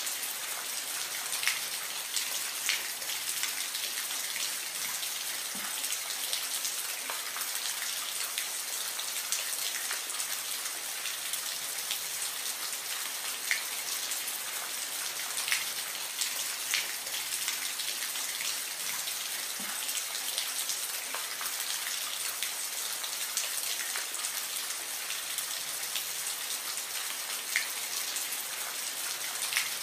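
Gentle, steady rain: an even hiss with scattered sharper ticks of individual drops landing close by.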